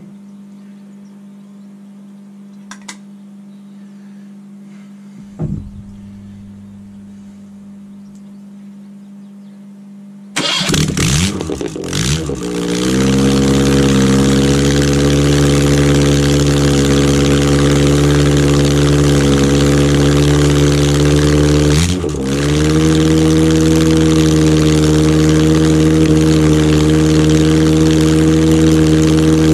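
Freshly rebuilt Ford Pinto SOHC engine, running on a chokeless Weber 32/36 DGAV carburettor, firing up. After about ten seconds of a low steady hum and a couple of knocks, it catches, picks up speed over a couple of seconds and settles into a steady fast idle, dipping briefly about two-thirds of the way through before recovering.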